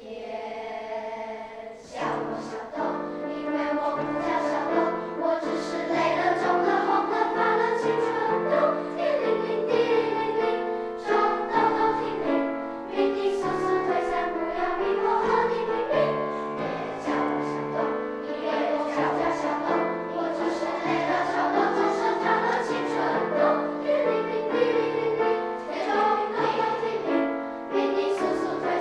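Children's treble choir singing with piano accompaniment, swelling to full voice about two seconds in.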